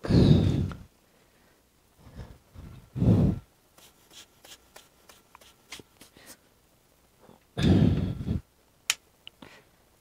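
Three loud puffs of breath close to the microphone, like sighs or blowing out, one near the start, one about 3 s in and one about 7.5 s in, with small clicks and taps in between and a sharp click near the end.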